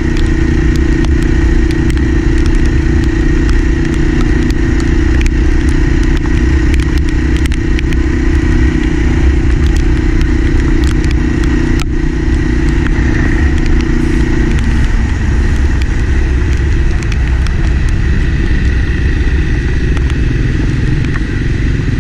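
Enduro motorcycle engine running steadily while riding. A steady tone in its note drops out about two-thirds of the way through, while the low rumble carries on.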